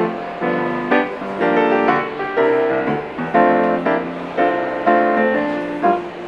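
Piano music, chords and notes struck at a steady pace, each fading before the next.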